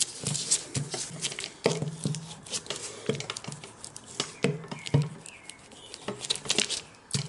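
Thin lightweight poncho fabric rustling and crinkling under the hands, with many irregular taps and clicks, as repair tape is smoothed down by fingers and then pressed with a small roller.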